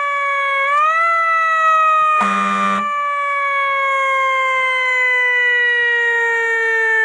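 Police car electronic siren in a slow wail. The pitch dips, jumps up about a second in, then falls slowly and steadily. A short buzzing horn blast sounds over it about two seconds in.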